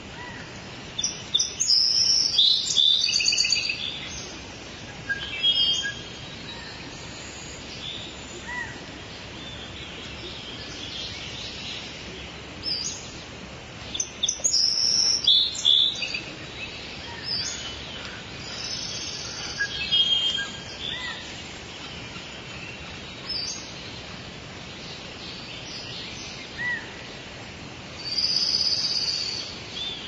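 Rainforest birds calling: clusters of chirps and trills in repeated bursts, loudest from about a second to four seconds in, around the middle, and near the end, over a steady background hiss.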